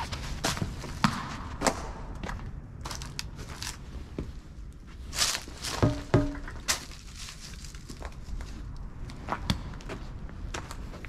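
Footsteps on a debris-strewn concrete floor, coming at an irregular pace over a steady low rumble. About six seconds in, a few louder knocks come close together with a brief ringing tone.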